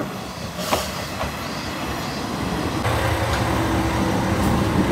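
Isumi Railway diesel railcar pulling into the station and drawing up alongside: a couple of sharp clicks in the first second or so, then the low hum of the diesel engine growing louder.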